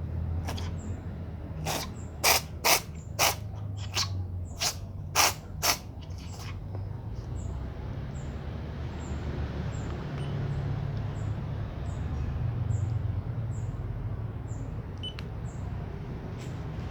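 Ginger Persian cat sick with flu, giving a rapid run of about seven short, sharp sneezes and coughs, roughly two a second, over a low steady rumble.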